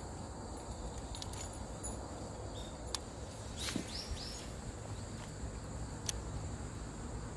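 Open-water ambience with insects trilling steadily over a low, even rumble. Two sharp clicks come about three seconds and six seconds in, with a brief chirping call between them.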